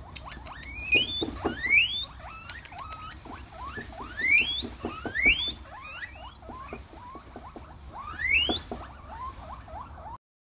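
Guinea pigs wheeking: rapid series of high squeals, each rising steeply in pitch, with loud bursts about two seconds in, around five seconds and near eight and a half seconds, cutting off abruptly near the end.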